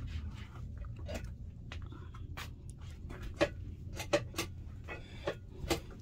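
A series of sharp, irregular knocks and clicks, about seven in all, the loudest two coming three to four seconds in, over a low steady hum.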